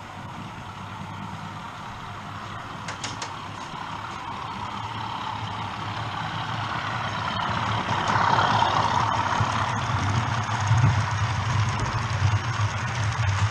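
OO gauge model diesel locomotive and its hopper wagons running toward the camera and passing close by, a steady mechanical rumble growing louder as the train approaches.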